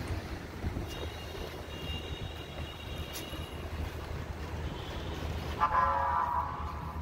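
Steady low city rumble with wind on the microphone, and a vehicle horn honking once, briefly, about five and a half seconds in.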